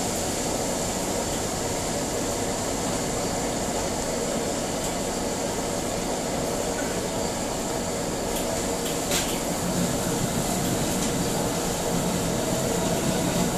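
Steady noise of a restaurant kitchen's gas wok burners and overhead extraction hood running, with a few short clicks about eight and nine seconds in.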